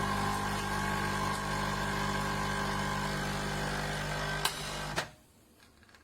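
NESCAFÉ Dolce Gusto pod machine's pump buzzing steadily with a hiss as it brews, while the faulty machine sprays boiling water. There is a click shortly before the pump cuts off sharply about five seconds in.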